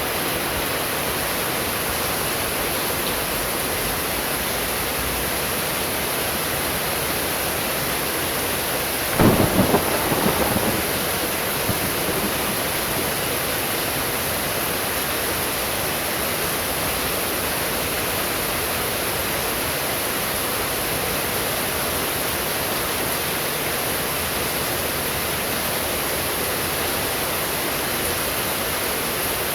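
Steady rain hissing throughout, with one sharp clap of thunder about nine seconds in that rumbles away over the next two or three seconds.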